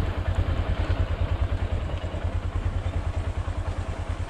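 Motorcycle engine running at low speed with an even, rapid low pulsing, along with rattling and noise from riding over a rough gravel track.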